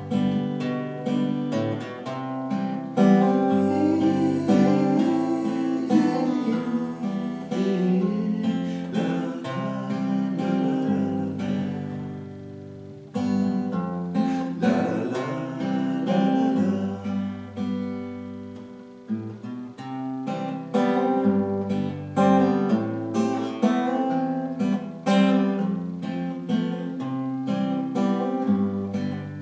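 A cutaway acoustic guitar played solo in an instrumental passage, strummed chords ringing on. The playing eases off briefly about twelve seconds in and again just before twenty seconds.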